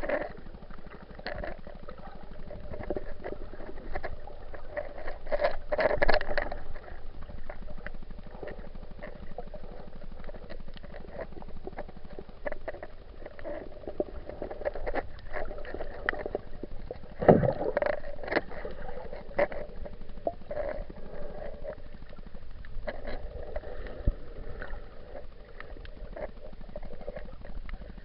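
Muffled underwater water noise picked up through an action camera's waterproof housing while snorkelling, with many irregular small clicks and knocks and two louder thumps about six and seventeen seconds in.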